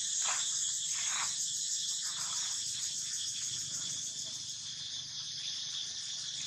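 Steady high-pitched chorus of insects, crickets or cicadas, shrilling without a break, with a few brief soft rustles in the first couple of seconds.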